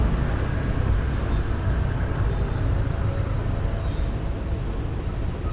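Steady city street traffic and road noise heard while moving along the road, with a heavy low rumble.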